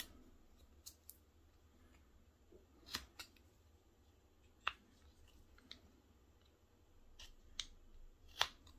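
Small carving knife paring thin cuts from a wooden doll blank, narrowing the face: a scattering of short, sharp snicks as each slice parts from the wood, the loudest about three, four and a half, and eight and a half seconds in.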